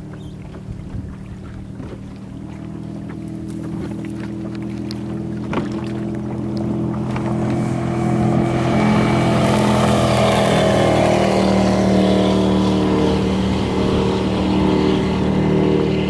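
Baja speedboat's Mercruiser MAG 496 big-block V8 running at high speed on a steady note, growing louder as the boat comes closer. From about eight seconds in, the hiss of spray and wake joins it.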